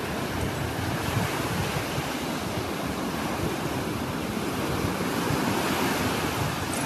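Surf washing in and out on a sandy beach, a steady rushing hiss, with wind buffeting the microphone in uneven low gusts. It cuts off abruptly at the end.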